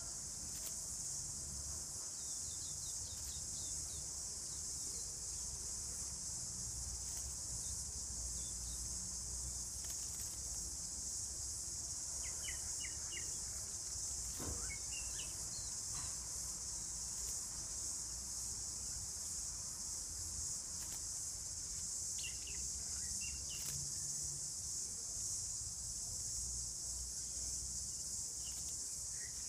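Steady high-pitched drone of an insect chorus, with short bird chirps here and there and a low rumble underneath.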